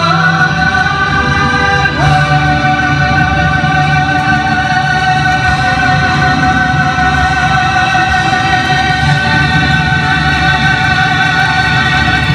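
Live band music with a male crooner holding one long final note over the band's closing chord; the note steps once about two seconds in and then holds steady.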